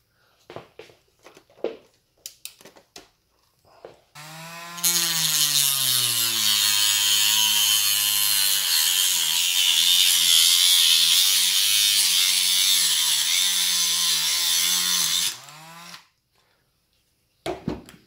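Dremel rotary tool with a cut-off disc cutting the end off a feeder tube: a few light handling clicks, then the motor starts about four seconds in and a loud grinding hiss runs for about ten seconds before the tool stops near the end.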